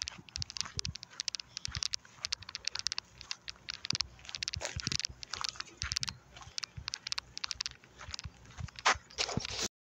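Footsteps crunching through dry grass and dirt: a dense, irregular run of crackles and clicks, with one louder crack near the end.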